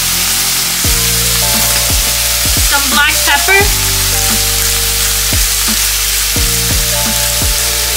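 Cherry tomatoes and onions sizzling steadily as they fry in a skillet, under background music with a deep bass beat.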